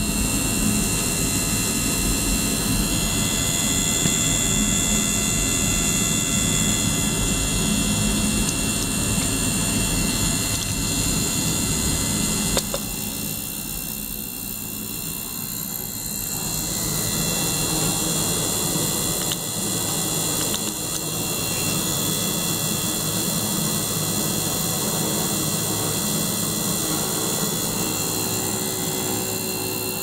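Ultrasonic cleaning bath running while a small pump circulates water through a bottle standing in the bath: a steady hiss and churn of water with several steady high tones. About twelve seconds in there is a click, and the sound drops for a few seconds before coming back.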